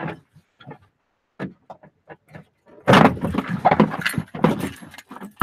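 Car door trim panel being pried off: a few scattered clicks and knocks, then from about three seconds in a loud stretch of clattering and cracking as it is worked loose.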